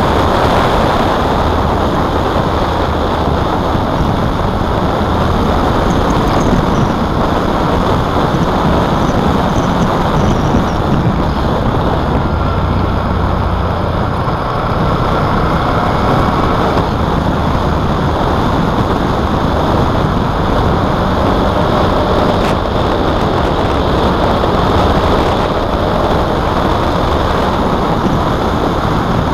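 Motorcycle riding at road speed: its engine running under a steady rush of wind on the bike-mounted microphone.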